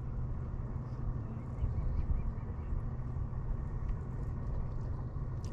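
Steady low rumble with a faint even hum from a fishing boat's motor running.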